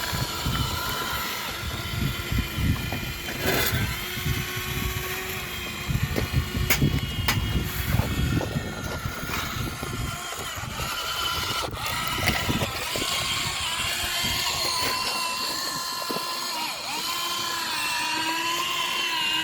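Small electric motors of a remote-control toy construction vehicle whining, the pitch wavering up and down as it works, with low rumbling and a few knocks in the first half.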